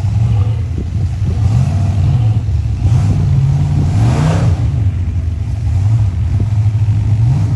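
Full-size rock crawler's engine running under load and revving as it climbs rock. Its pitch rises from about two seconds in to a peak around four seconds, drops back, and rises briefly again near the end.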